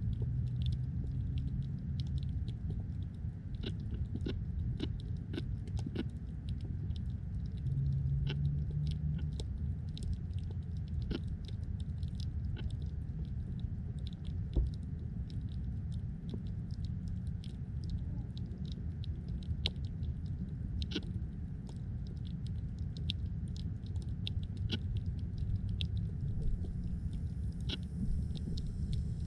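Underwater sound picked up by a submerged camera: a steady low rumble of water, with many sharp, irregular clicks and snaps scattered throughout and one heavier thump about halfway through.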